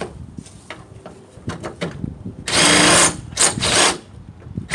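Cordless impact gun with a 10 mm socket run in short bursts on a grille nut: one burst of about half a second, then two shorter ones. The mechanic takes this fastener for stripped.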